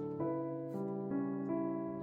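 Background music: soft piano (or electric piano) playing a slow melody over sustained chords, with a new note about every half second.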